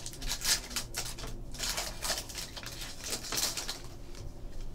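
Foil trading-card pack wrapper crinkling as it is torn open and pulled off a stack of cards, in a series of short rustles.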